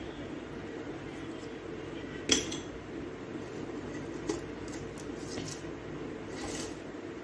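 A steady low drone, with a sharp clink of small hard objects about two seconds in and a fainter clink about two seconds later.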